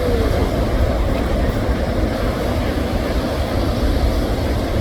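Steady low rumble of ocean surf, an even noise without distinct breaks or strikes.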